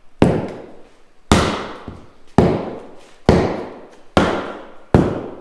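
Dead blow hammer striking the bead of a 37x12.50R17 Nitto Ridge Grappler tire on a beadlock wheel, six blows about a second apart, each fading away with a short echo: seating the bead in place before the beadlock ring goes on.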